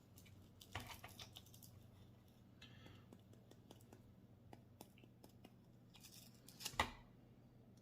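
Faint scratching and clicking as a firecracker's paper casing is picked and cut open by hand, with a louder scraping rustle about six to seven seconds in, over a low steady hum.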